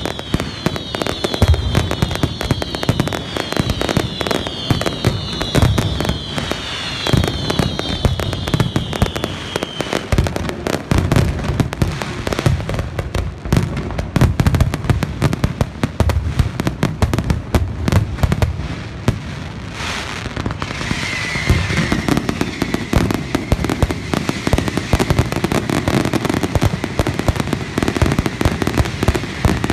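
Fireworks display: a dense, unbroken run of shell bangs and crackles, with falling whistles repeating for about the first ten seconds.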